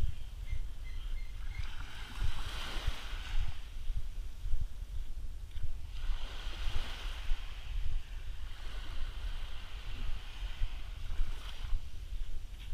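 Small waves washing up onto a sandy shore, a soft hissing wash about every four seconds, three in all, over a steady low rumble of wind on the microphone.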